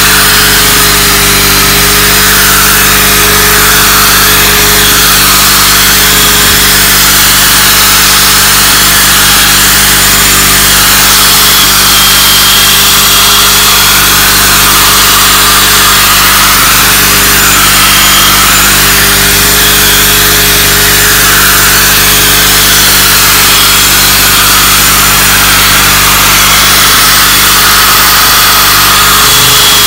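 Electric drill running steadily with a sanding pad attachment, wet-sanding a plastic headlight lens, over the steady hum of a running generator engine. The drill's whine drops away near the end while the generator keeps running.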